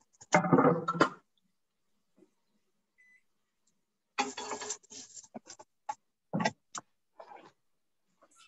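A wooden cutting board being handled and set down on a countertop: a clatter of knocks just after the start, a quiet pause, then a second clatter about four seconds in as the board and a chef's knife come down, followed by scattered light knocks and handling noise.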